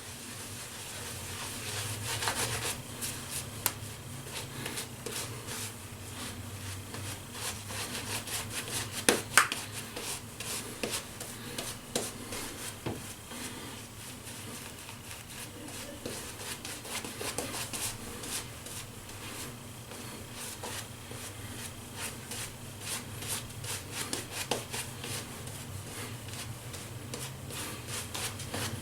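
Shaving brush scrubbing creamy lather onto a stubbled face: a steady wet, bristly rubbing made of many quick small strokes.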